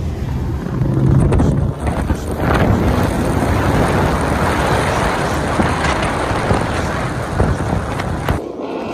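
Wind rushing over the phone's microphone and tyre hiss on a rain-soaked road as the BMW 335i drives at speed, with the car's engine droning low for the first couple of seconds. The rush cuts off sharply near the end.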